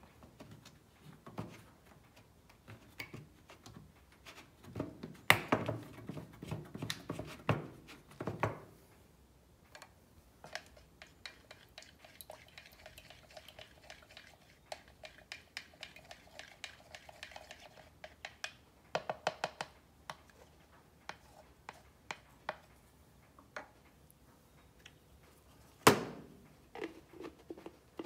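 Paint cans, cups and tools being handled on a workbench: light clinks and knocks, with a run of louder thumps about a quarter of the way in and one sharp knock near the end.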